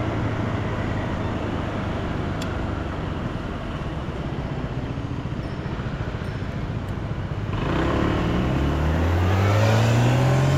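Honda PCX 125 scooter's single-cylinder engine under way with wind and road noise. About three-quarters of the way through it speeds up, its pitch climbing steadily as the scooter accelerates.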